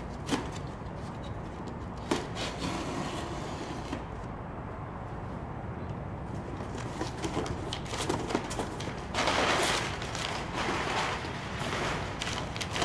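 A cardboard shipping box being handled and opened, with packing paper rustling. A louder rustle comes a little past the middle, and scattered knocks and clicks come before it.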